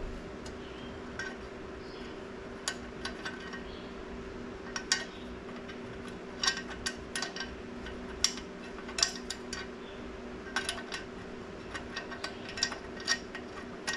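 Irregular metallic clicks and clinks of bolts and hand tools against the clutch pressure plate and flywheel as the pressure plate bolts are fitted, over a steady low hum.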